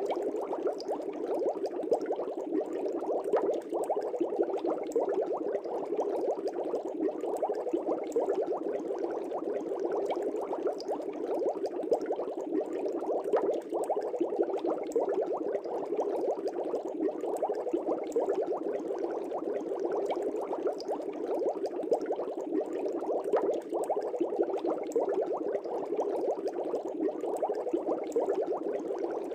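Aquarium water bubbling steadily: a dense, unbroken stream of small bubbles with a fine crackle.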